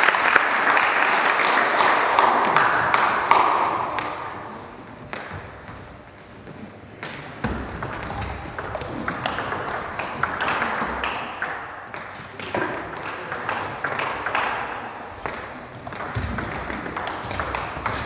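Celluloid or plastic table tennis ball clicking off paddles and the table in rallies, with many short, sharp, irregular knocks. The first few seconds are covered by a loud, even wash of noise that fades out.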